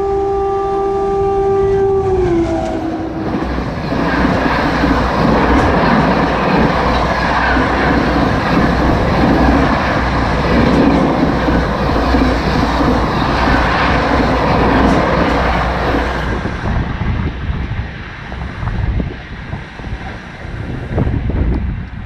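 Express train passing at speed. The locomotive's horn sounds a long chord that drops in pitch about two and a half seconds in as it goes by. The coaches then rush past with a loud, steady noise of wheels on rail for about thirteen seconds before it fades.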